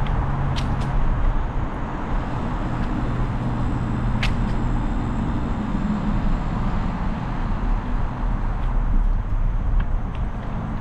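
Specialized Epic mountain bike rolling along asphalt: steady tyre and wind noise on the bike-mounted microphone, with a sharp click about four seconds in.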